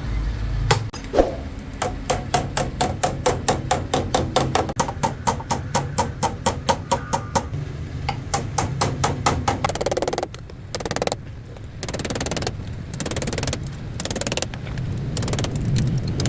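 Rapid, even taps or knocks on something hard, about five a second, giving way after about ten seconds to slower, irregular knocks.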